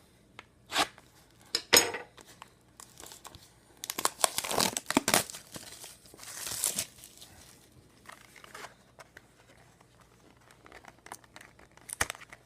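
Packaging of a box of hockey trading cards being torn open, crinkling and tearing in several short bursts, the longest about four to five seconds in, then only light rustling.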